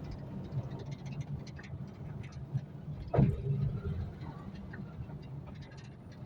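A vehicle engine running steadily, with scattered small ticks and one short falling cry about three seconds in.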